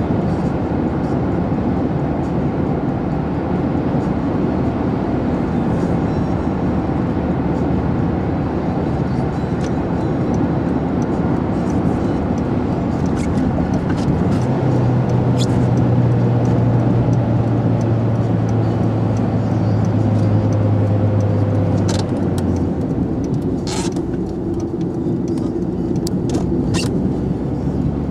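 Car driving at steady road speed, heard from inside the cabin: continuous engine and tyre noise, with a steady low hum coming in about halfway and fading out after about eight seconds. A few short sharp ticks sound in the last few seconds.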